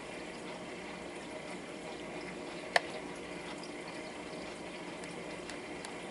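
Steady faint hiss with a single sharp click about three seconds in: a volume button pressed on a portable CD player with built-in radio.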